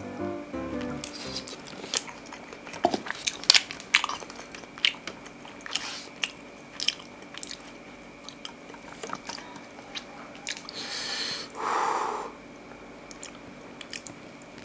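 Close-up mukbang chewing of soft, creamy macaroni and cheese, with many short wet mouth clicks. A longer hissing sound comes about eleven seconds in.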